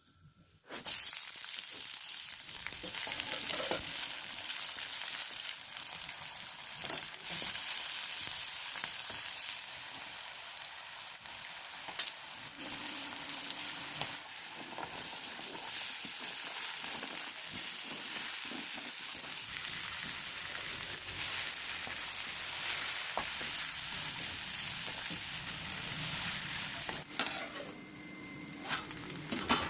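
Okra sizzling as it fries in oil in a pan for bhendi bhaji. The sizzle starts about a second in and carries on steadily, with scattered short clicks of a spatula stirring it.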